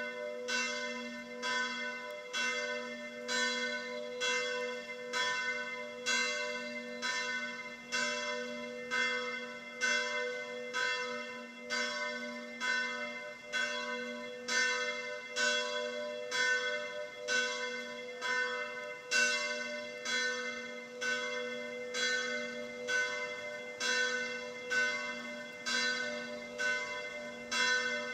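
A bell tolling steadily, about one stroke a second, each stroke ringing on into the next.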